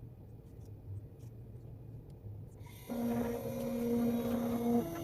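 CNC engraving router's electric motors starting to run: after quiet with a few faint clicks, a steady whine starts suddenly about three seconds in.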